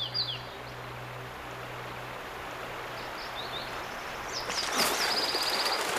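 River water rushing steadily, growing louder about four and a half seconds in. Short high bird chirps come near the start, and a quick bird trill about five seconds in.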